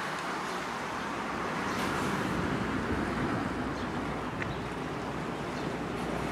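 Steady outdoor rushing noise with a low rumble underneath, growing slightly louder about two seconds in.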